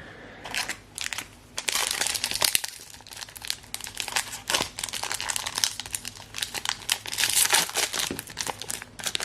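A Pokémon Paldea Evolved booster pack's foil wrapper crinkling and being torn open by hand, a dense run of irregular crackles.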